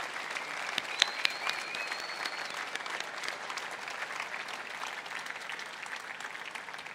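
Large crowd clapping, with a thin whistle about a second in that lasts a second or so; the applause slowly dies away.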